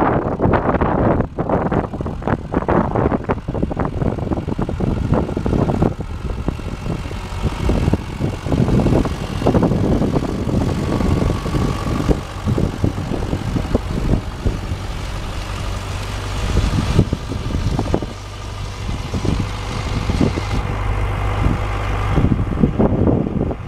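Tractor engine running steadily under load as it pulls a seed drill, with wind gusting on the microphone.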